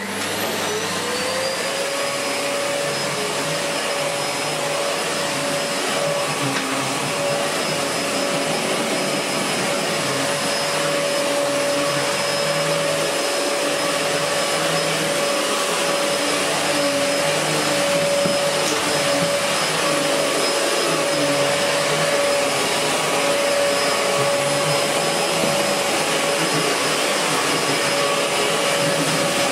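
Miele S7 Cat and Dog upright vacuum cleaner switching on, its motor whine rising to speed within about the first second, then running steadily while it is pushed back and forth over thick carpet. The freshly refurbished motor runs smoothly, with the exhaust filter fitted to quieten the airflow.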